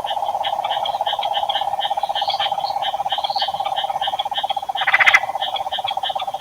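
Dense chorus of frogs calling after heavy summer rain: a continuous trilling drone under many short, higher-pitched repeated calls. One louder rasping call stands out about five seconds in.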